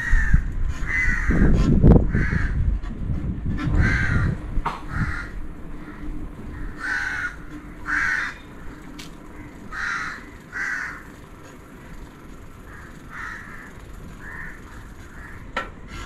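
A bird calling over and over in short calls, often in pairs, about one a second. A low rumble runs through the first few seconds and dies away.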